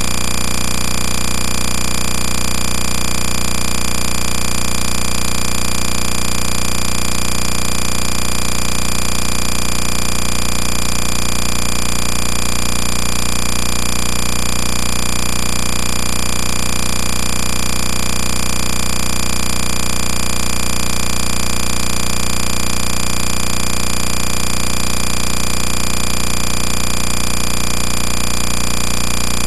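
A loud, steady machine-like drone that does not change at all.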